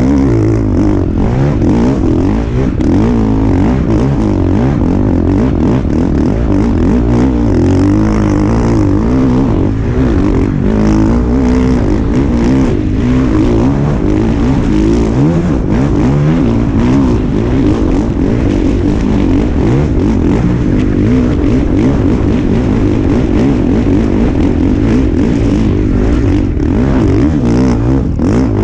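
Husqvarna motocross bike's engine revving hard and continuously while being ridden, its pitch rising and falling with the throttle.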